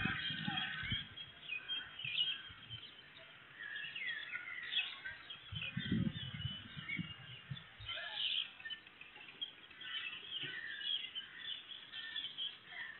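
Many small birds chirping and calling in quick, overlapping short notes, heard through a CCTV camera's microphone, with a brief low rumble of sound about six seconds in.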